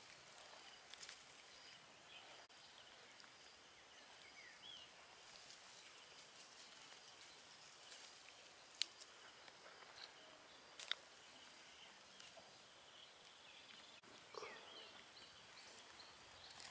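Near silence: a faint outdoor background with a few short, faint chirps and two sharp clicks, about nine and eleven seconds in.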